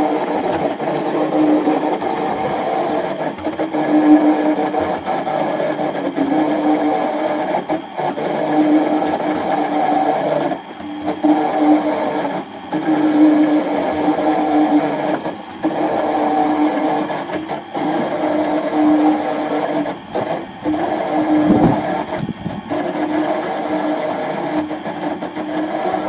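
Small electric concrete mixer running, its drum turning a wet mortar of river sand and cement: a steady motor and gear hum that swells and fades every second or two, with occasional knocks. Partway through, a bucket of water is tipped into the turning drum.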